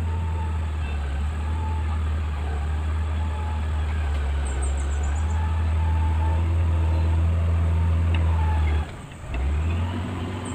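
Motor grader's diesel engine running steadily as the machine drives up the mound of fill. About nine seconds in the engine note drops away abruptly, then comes back about half a second later.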